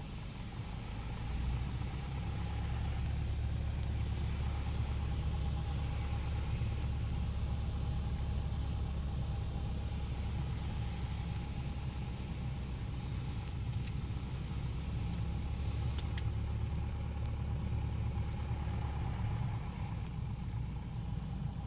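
Piper PA-28-181 Archer's four-cylinder Lycoming engine running at low taxi power, a steady low rumble in the cockpit that comes up about a second in.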